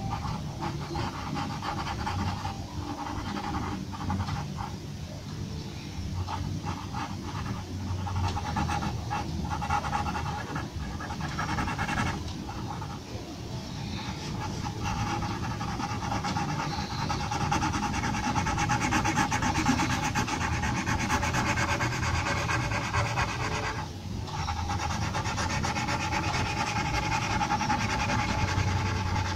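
Graphite pencil scratching on paper in quick hatching strokes while shading: separate strokes at first, then a dense, fast run of strokes from about halfway through.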